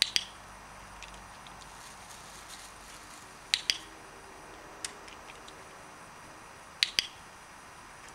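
Dog-training clicker, each press-and-release giving a sharp double click, sounded three times about three seconds apart, marking the dog's correct behaviour during obedience training.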